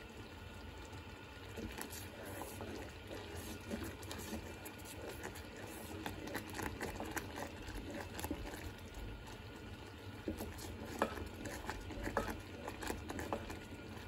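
Agar-agar solution boiling in a small saucepan, bubbling steadily with many small pops, while a wooden spoon stirs it. The thickened syrup is at the stage where it runs off the spoon in a stream, the sign that it is ready.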